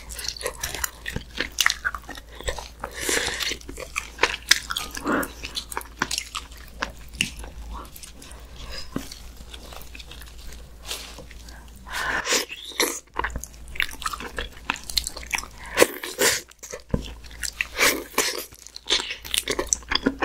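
Close-miked chewing and biting of tender, pressure-cooked muscovy duck meat eaten by hand from a spicy stew, with wet mouth smacks and sharp clicks. It is quieter for a few seconds in the middle.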